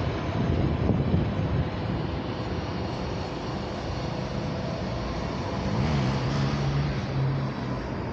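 Steady rumble of a passing vehicle, with a low engine hum that rises and then holds about six seconds in.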